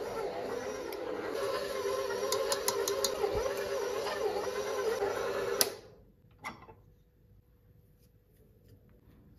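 KitchenAid 6-quart bowl-lift stand mixer running with its dough hook kneading brioche dough, with a few light clicks along the way. The motor stops abruptly a little under six seconds in, followed by one short soft knock.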